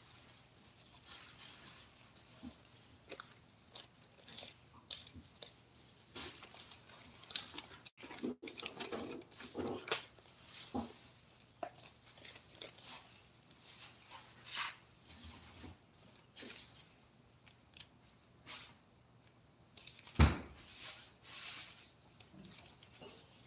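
Irregular scraping, crunching and light knocking of handwork on a wooden carving, with one loud knock about 20 seconds in.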